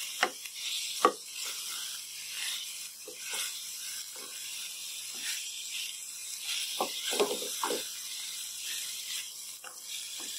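Wooden spatula stirring and scraping thick lauki halwa around a steel pan, with about ten irregular scrapes and knocks over a steady sizzle of the ghee.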